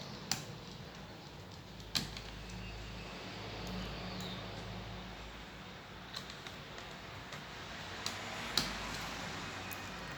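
Five sharp, short clicks of small parts and tools being handled during laptop work, the loudest about two seconds in and near the end, over a steady low hum.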